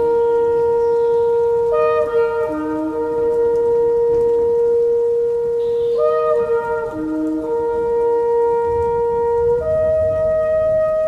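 Several blown horns sounding long, steady, overlapping notes at different pitches, with a new blast coming in about every four seconds, one of them sliding down in pitch as it starts.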